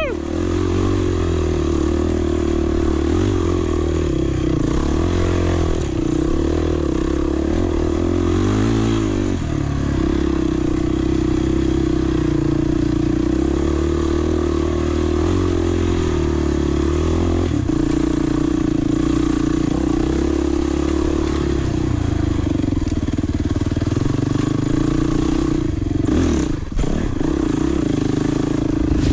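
Off-road trail motorcycle engine running and revving up and down as it is ridden over hard terrain.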